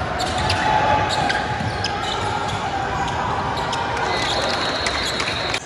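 Basketball game sound on a hardwood gym court: the ball bouncing, players' shoes and voices, ringing in a large hall, with a high squeak near the end.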